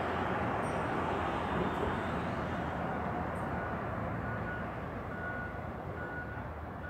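Road traffic rushing past, a steady wash of tyre and engine noise that eases slightly toward the end. From about halfway in, a faint beep repeats about once every 0.8 s: a distant vehicle's backup alarm.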